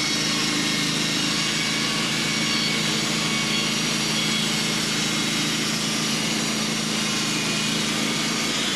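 Engine-driven sawmill running steadily as its blade cuts through a hemlock log: a constant engine hum under a dense, even sawing hiss.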